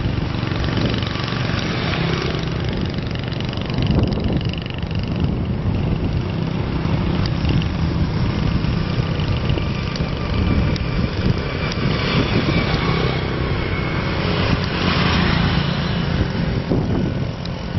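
Motorbike engines passing along a road, swelling and fading over a steady rushing noise.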